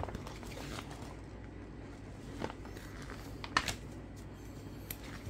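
Paper pages of a printed instruction booklet being flipped and handled: a few short rustles of paper, the sharpest about three and a half seconds in.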